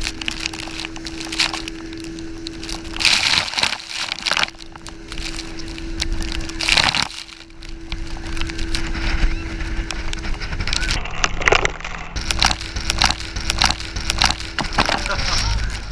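Water spray and wind hitting the camera's microphone on an inflatable banana boat being towed at speed, a rough rushing noise full of crackling splashes, over a steady low hum.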